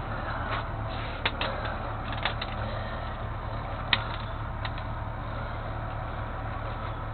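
A vehicle engine running steadily, with scattered sharp clicks and ticks over it; the sharpest click comes about four seconds in.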